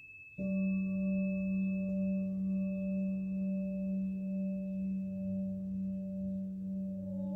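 A struck metal sound-healing instrument starts ringing suddenly about half a second in: a strong steady low hum with a few fainter, higher overtones, sustaining with a slow waver. A faint high ringing tone from an earlier stroke fades out underneath at the start.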